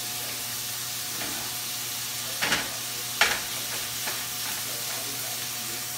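Eggs with minced pork and pickled radish sizzling steadily in a frying pan as they are stirred, with two sharp clatters of the utensil against the pan a little before and after the middle.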